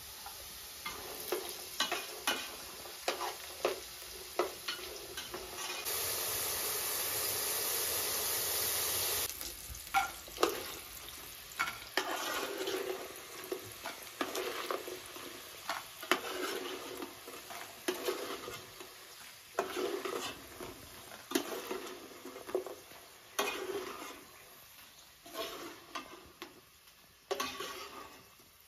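Diced potatoes frying in oil in a metal pot, with a spoon scraping and clinking against the pot as they are stirred and scooped out. About six seconds in there are a few seconds of louder steady hiss.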